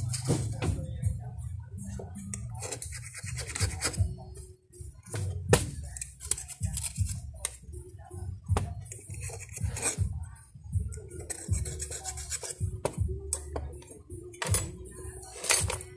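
Irregular scraping, rubbing and sharp clicks of a blade and fingers working on a small oval speaker's metal frame, over music.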